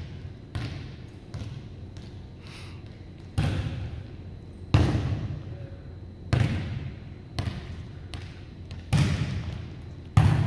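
A volleyball being struck and bouncing on a hardwood gym floor: about nine sharp impacts at uneven intervals, each ringing out with the echo of a large gym; the loudest come near the middle and near the end.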